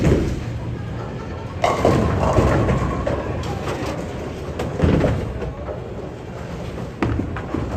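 Bowling alley sounds: sudden crashes about a second and a half, five and seven seconds in, each fading into a rumble, the sound of bowling balls striking pins, over the steady noise of the lanes.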